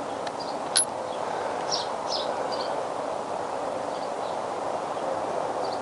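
Steady outdoor background noise with a few short bird chirps. There is a single sharp metallic click about a second in as the removed spark plug is handled in its plug socket.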